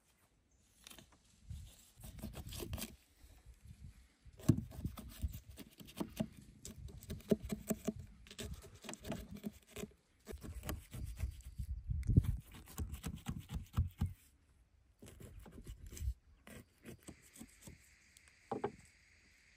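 Knife slicing into a raw whole sheep carcass on a wooden board: spells of short wet cutting and tearing sounds with dull thuds as the meat is pressed and handled, broken by brief pauses.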